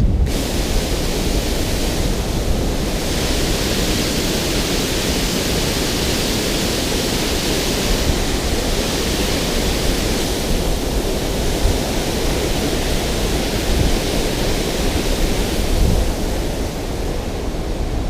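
Steady roar of water rushing off a dam spillway, with low wind buffeting on the microphone; the hiss of the water grows brighter about two and a half seconds in.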